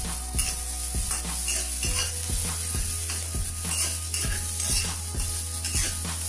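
Spatula stir-frying scallions, chili and sa cha paste in a hot honeycomb stainless steel wok: a steady sizzle with repeated scraping and tapping strokes of the spatula against the pan, a few a second.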